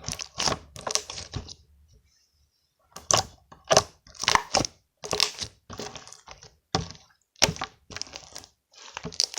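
Jelly-like slime being squeezed and pressed by hand, making a run of sharp crackling pops about two a second, with a short pause about two seconds in.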